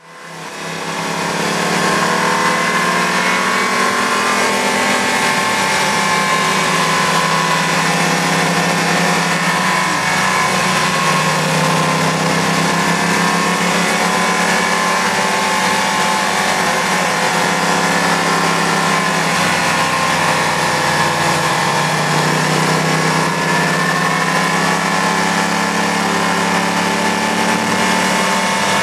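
Sport motorcycle engine running at road speed, heard from on the bike, its note rising and falling gently through the bends, with steady wind rush over it. The sound fades in over the first couple of seconds.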